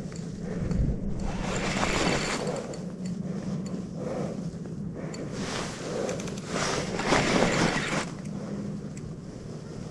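Daiwa Crest LT4000-C spinning reel being cranked in spells against a hooked fish on a bent rod: a whirring, rasping wind of the gears and line, with the longest stretch from about five to eight seconds in.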